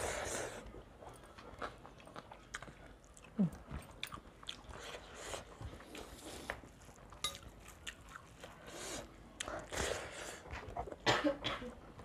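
Close mouth sounds of people eating: chewing and biting, with many small wet clicks and squishes, and a few louder bursts near the end. The food is rice mixed with curry, eaten by hand from steel plates.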